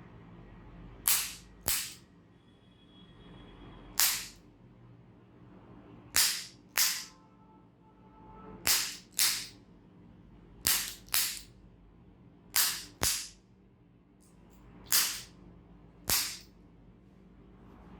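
A series of about a dozen loud, sharp cracks or slaps, mostly in pairs about half a second apart, repeating every two seconds or so, each with a brief ringing tail.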